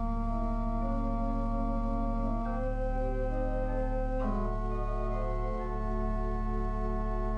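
Organ playing slow, sustained chords that change twice, about two and a half and four seconds in.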